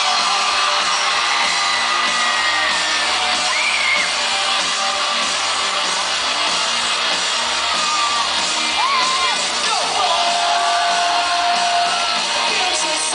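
Live pop-rock band with electric guitars and drums playing loudly through a concert PA, with a crowd of fans shouting and screaming high over the music.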